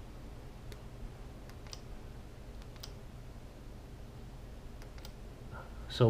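Faint, scattered clicks of buttons being pressed on the small wireless remote of a bicycle tail light, about six in all, some single and some in quick pairs, over a low steady hum.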